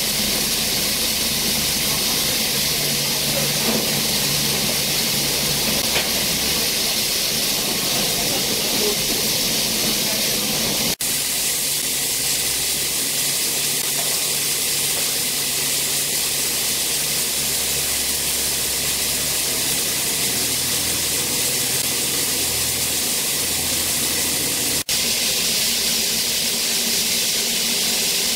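Peppercorn A1 Pacific steam locomotive 60163 Tornado standing with steam hissing steadily, over a faint low hum.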